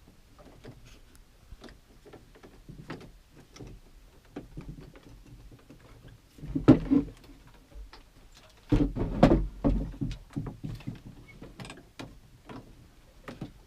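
Foley sound effects being performed with props: a run of small knocks and clicks, with two louder stretches of handling noise about six seconds and nine seconds in.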